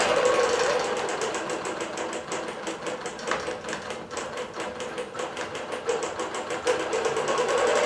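Bernina Q24 longarm quilting machine stitching under computer control: a fast, even run of needle strokes over a steady motor hum as it sews a digital quilting pattern into the quilt border.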